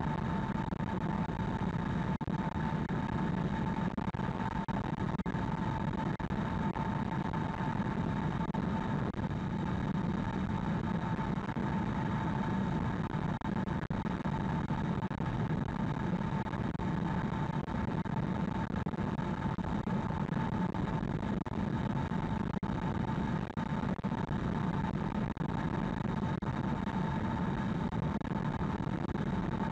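Steady road and tyre noise of a 2020 Hyundai Ioniq Electric cruising at expressway speed, heard from inside the cabin. A steady whine sits over the low rumble.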